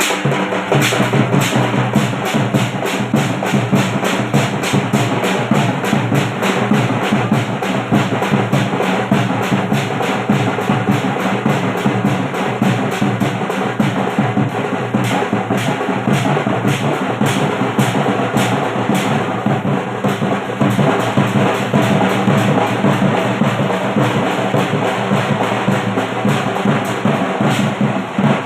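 Loud, drum-heavy music played over a DJ sound system, with fast, even drum beats over a steady bass line.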